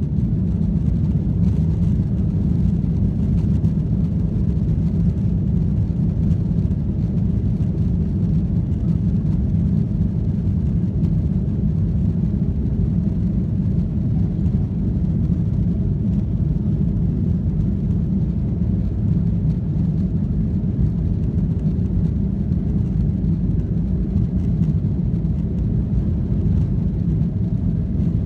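Boeing 737 airliner's jet engines running with a steady low rumble that holds level throughout.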